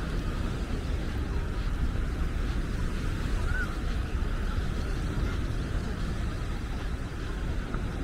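Wind buffeting the microphone with a steady, fluctuating low rumble over a constant wash of sea and beach noise, with one brief high chirp about halfway through.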